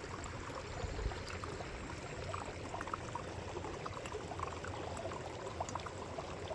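Water flowing steadily in a small stream, a continuous trickling rush with small drips and splashes running through it.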